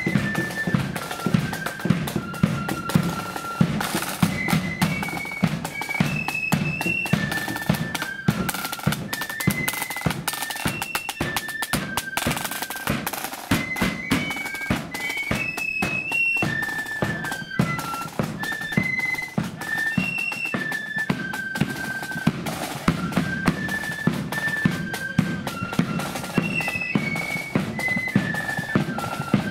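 Marching flute band playing a march: massed flutes carry a single melody over rolling snare drums and a steady bass drum beat.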